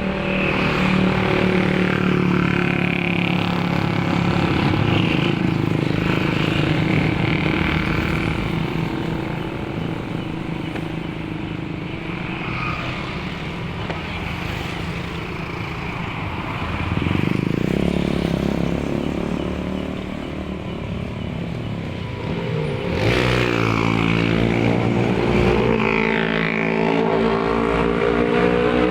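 Motorcycles and cars passing on a busy road, engines rising and falling as each goes by, with louder close passes about two-thirds of the way in and again near the end.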